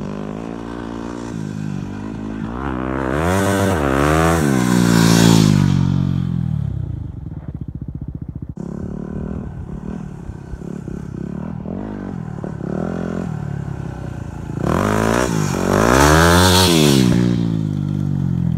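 Yamaha WR250R single-cylinder four-stroke dirt bike revving hard and riding past twice on gravel, its engine note sweeping up and then falling away with each pass. Between the passes the engine runs at lower revs.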